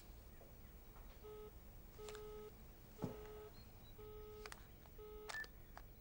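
Faint telephone ringing tone heard through a phone handset while a call waits to be answered: a short beep about once a second, with a sharper click about halfway through.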